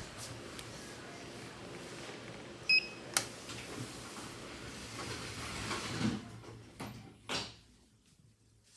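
Steady background hum with a short, high electronic beep about three seconds in, a sharp click just after it, and a soft rush near the end.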